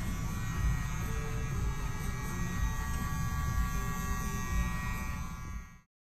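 Electric hair clippers buzzing steadily while cutting hair, stopping abruptly near the end.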